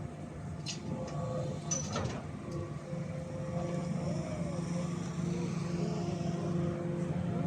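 Heavy construction machinery's engine running steadily, a low rumble that grows a little louder about three seconds in, with a couple of faint clicks near the start.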